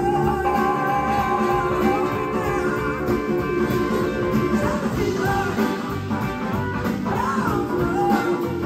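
Live blues-rock band playing: electric guitars over bass and drums, with a woman singing.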